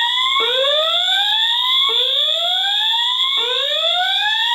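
Fire alarm horns sounding continuously at high volume after a manual pull station has been pulled. A rising whoop repeats about every one and a half seconds over a steady high-pitched tone.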